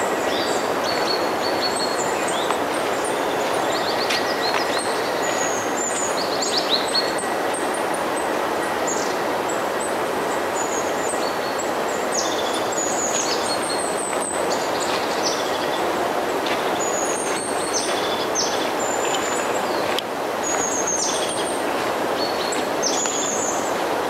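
A distant train passing with a steady rumble, with many short, high chirps from small birds over it.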